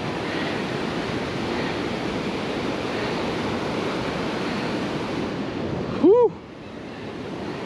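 Ocean surf washing steadily onto the beach, with a short voice sound from a person about six seconds in, after which the wash falls quieter.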